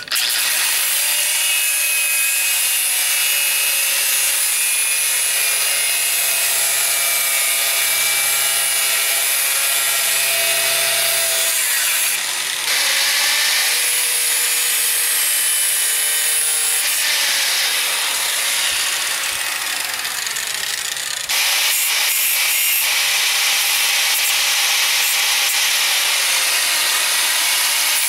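Electric angle grinder running with a sanding disc pressed against wood, sanding the edge of a wooden panel. The sound changes as the disc comes off the wood and goes back on, dips briefly about twelve seconds in, and steps louder about twenty-one seconds in.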